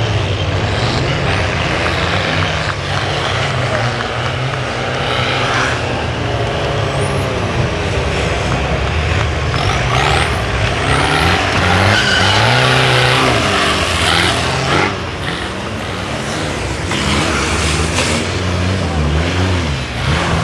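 Engines of a pack of 4x4 off-road race vehicles revving hard together as they accelerate off the start. Their pitch rises and falls as they shift and climb, over the rumble and rattle of the vehicles on rough ground.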